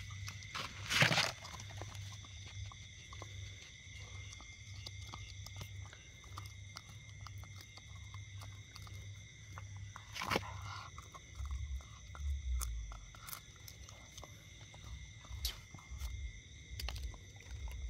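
Dog gnawing and crunching a meat bone: scattered clicks and crackles of teeth on bone, with two louder sharp cracks, about a second in and about ten seconds in. A steady high-pitched drone runs underneath.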